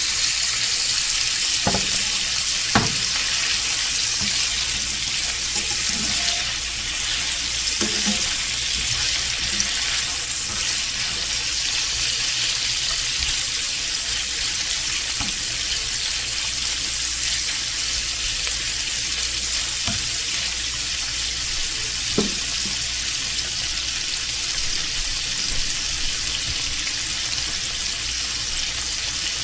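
Bacon frying in a pan: a steady, hissing sizzle with a few sharp pops.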